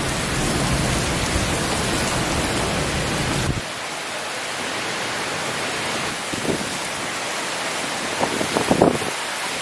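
Heavy rain falling in a strong wind: a steady dense hiss of rain. A low wind rumble on the microphone cuts off suddenly after about three and a half seconds.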